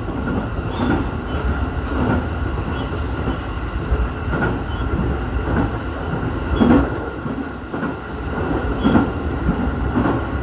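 Ome Line electric train running, heard from inside at the front: a steady low rumble with irregular clacks of the wheels passing over rail joints about every second or two.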